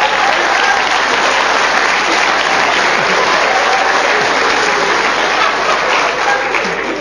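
Audience applauding steadily, tailing off slightly near the end.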